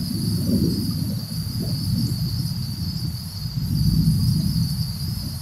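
Heavy thunderstorm downpour: rain hissing steadily over a low, swelling rumble, with a steady high insect trill of crickets running through it.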